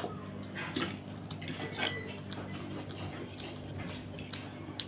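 Metal fork scraping and clinking against a plate while gathering noodles, with a few sharp clinks about a second in, about two seconds in, and just before the end, over a steady low hum.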